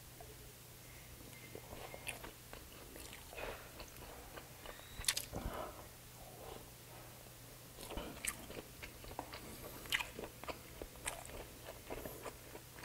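Close-miked biting and chewing of grilled isaw (intestine skewers): irregular crunches and sharp clicks of the teeth and mouth, in uneven spurts, over a faint steady low hum.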